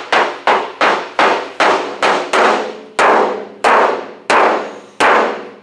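Body dolly tapping lightly and repeatedly on the Volkswagen Beetle's steel roof panel: about a dozen sharp metallic taps, each ringing briefly, the strokes spacing out toward the end. The taps are gently working low spots in the dented roof back up.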